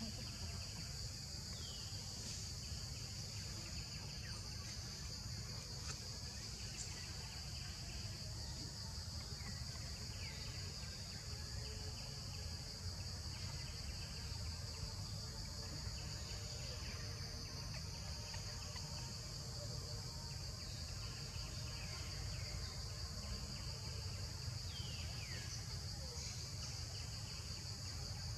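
Steady high-pitched drone of an insect chorus, with short falling bird chirps now and then, over a low steady rumble.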